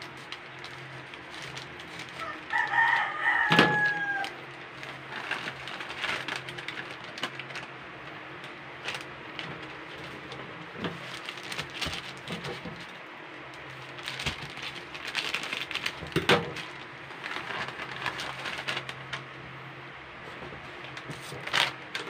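A rooster crows once, about three seconds in, in a call with a falling end. Around it come scattered clicks and rustling as a plastic pack of powdered sugar is snipped open with scissors and emptied into a steel bowl.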